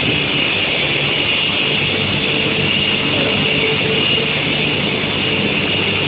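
Steel-sheet tempering line with induction heating and roller conveyors running: a steady machine noise with a constant high whine over a low hum.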